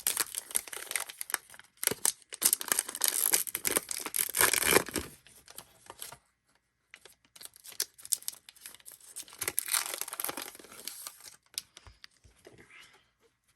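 Trading card pack wrappers being torn open and crinkled by hand, in two spells: the first over the opening six seconds, the second starting about seven seconds in.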